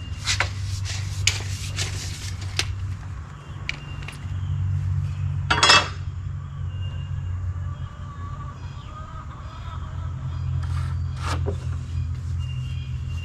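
A steady low motor hum with scattered sharp metallic clinks and knocks, the loudest about halfway through.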